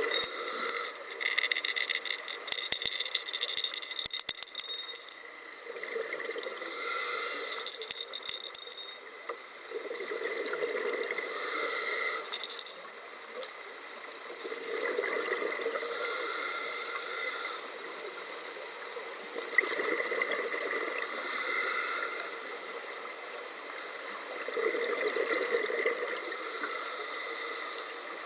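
Scuba diver breathing through a regulator underwater: a slow cycle, about every five seconds, of a rushing inhalation alternating with a burst of exhaled bubbles that rattle and crackle.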